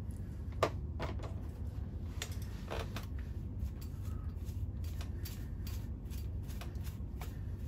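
Backcombing a wig: a brush or comb pushed through a lifted section of hair in a series of short strokes, a few at first, then several a second in the second half.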